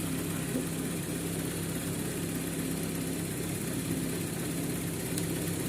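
Toyota Corolla 'Lovelife' engine idling steadily, now starting and running normally after its hard-starting fault has been repaired.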